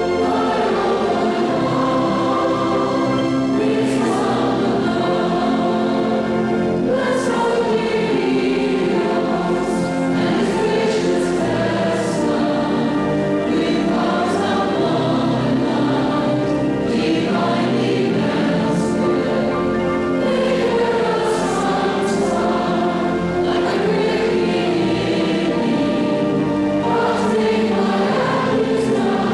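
A congregation singing a hymn together, many voices in chorus on long held notes.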